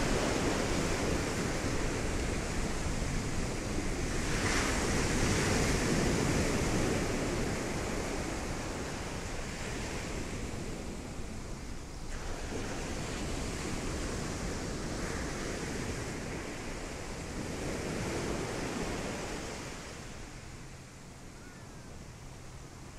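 Sea surf: waves breaking and washing ashore, rising and falling in slow surges, loudest at first and quieter near the end.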